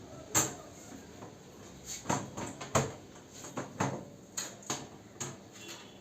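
Irregular sharp clicks and knocks of hard objects being handled, about a dozen in all, the loudest about a third of a second in and just before the three-second mark.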